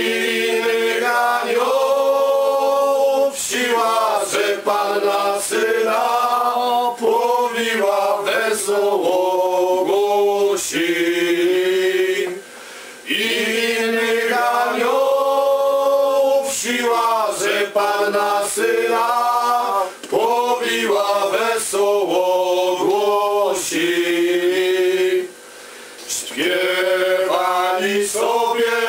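A group of men singing a Polish Christmas carol together, in several sustained sung lines, with two short breaths between phrases about twelve and twenty-five seconds in.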